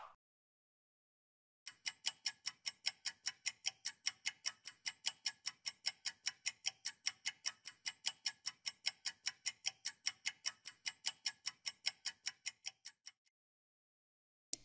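Clock ticking sound effect for a quiz countdown timer, about four even ticks a second. It starts a couple of seconds in and stops shortly before the end.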